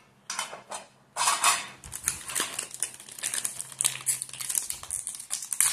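Hands tearing open a wrapped Topps Match Attax booster pack, a dense irregular crinkling and tearing of the wrapper. A few light clicks come just before it, about a second in.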